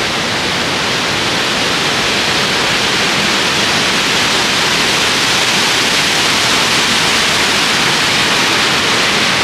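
Waterfall rushing steadily down a rock gorge: a loud, even hiss of falling water.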